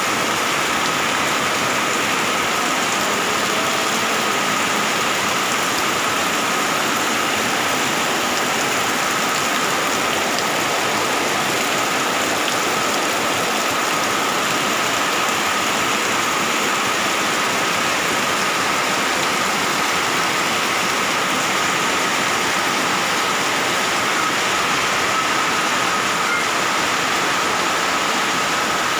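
Heavy tropical downpour falling steadily, with runoff pouring off a roof edge onto a flooded pavement.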